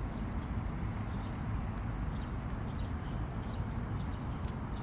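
Footsteps of someone walking on a paved path, light regular clicks of shoes, over a steady low outdoor rumble, with a couple of brief high bird chirps.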